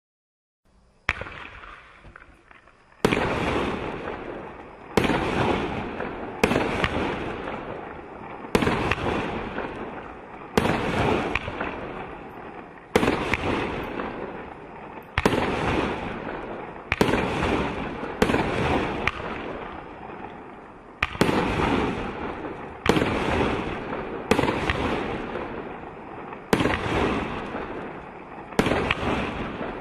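Benwell Midnight Storm 19-shot firework cake firing: a faint fizz for about two seconds, then a string of sharp bangs one to two seconds apart, each fading away before the next.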